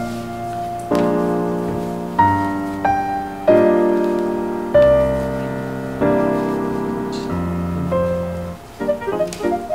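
Background piano music: slow chords struck every second or so, giving way near the end to quicker repeated notes.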